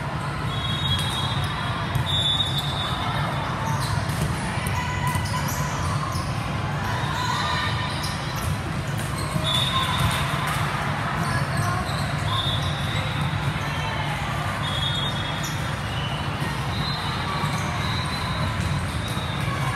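Indoor volleyball play echoing in a large gym hall: balls struck and bouncing, sharp impacts scattered throughout, over a steady hall rumble and the chatter of players and spectators. Short high tones come in every couple of seconds.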